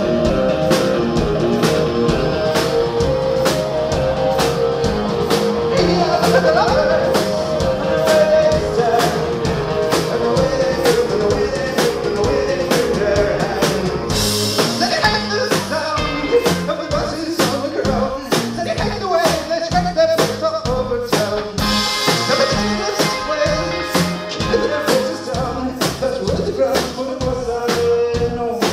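Live rock band playing loud in a club: drums keep a steady beat under electric guitar and keyboards, with cymbals washing in about halfway through.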